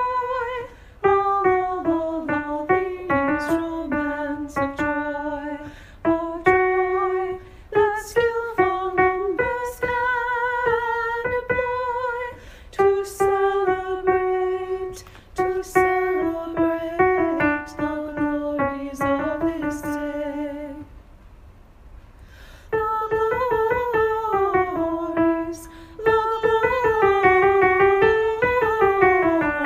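Piano playing the alto part of a choral rehearsal track: a melody of held and moving notes, with a break of about two seconds about two-thirds through, then quick running notes near the end.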